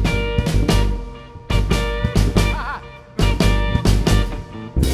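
Live band playing the ending of a country-rock song: drums and guitar hitting accented stops together in clusters, with a guitar bend wavering in the middle.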